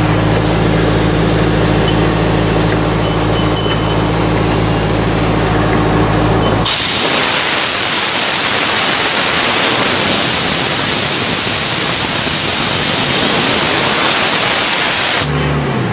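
The Sullivan D185Q air compressor's John Deere four-cylinder diesel runs with a steady hum. About seven seconds in, a loud hiss of compressed air blowing out of the compressor's outlet valve starts suddenly, holds steady for about eight seconds, then cuts off, leaving the engine hum again.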